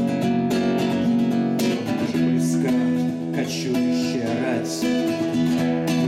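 Acoustic guitars strumming steady chords in an instrumental passage between sung verses, led by a nylon-string classical guitar.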